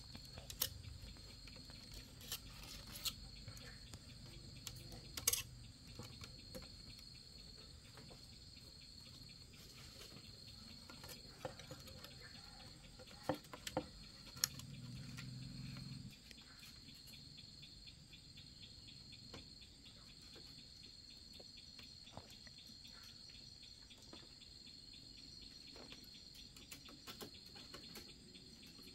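Insects chirring steadily in one high, unbroken tone, with scattered sharp knocks and taps on top, the loudest about five seconds in and a cluster a little past the middle.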